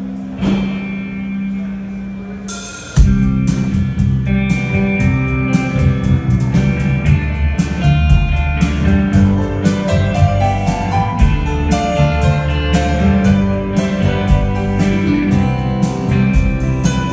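Rock band playing live on amplified electric guitar, bass and drum kit. A held chord rings for the first few seconds, then about three seconds in the drums and full band come in with a steady beat and cymbal hits.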